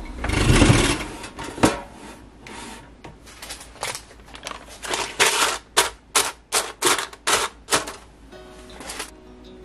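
Kitchen work sounds: a heavy thud just after the start, then a quick run of about ten sharp knocks, two to three a second, with soft background music under them.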